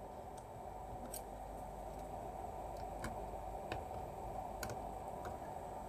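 A fine metal tool tip scraping and tapping at a corroded connector pin on a circuit board, cleaning the corrosion off so the bare copper shows. It gives a handful of faint, irregular ticks.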